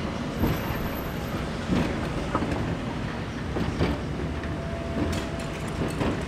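Heritage electric tram running on street rails, its wheels giving irregular clicks and knocks over the track, with a faint steady tone for a couple of seconds in the second half.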